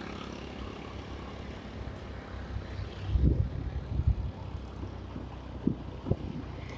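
Steady low rumble and road noise of a vehicle travelling along a road, with a few short low thumps in the second half.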